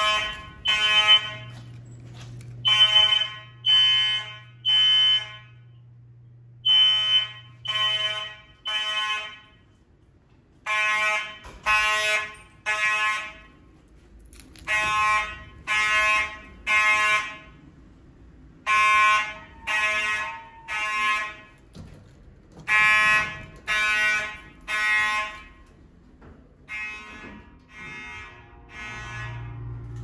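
FCI mechanical fire alarm horns sounding the temporal-three evacuation pattern: a buzzy horn blast, three times about a second apart, then a short pause, repeating. The groups grow somewhat fainter near the end.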